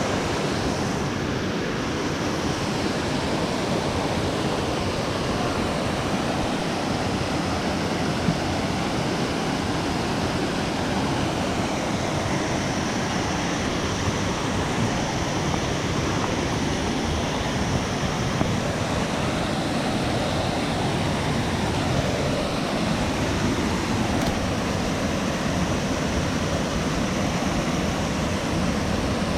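A loud waterfall rushing: a steady roar of falling water with no let-up, and some wind buffeting the microphone.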